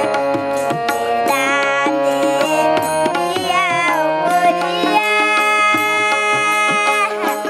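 A girl singing a song in a high voice, with percussion beats behind it.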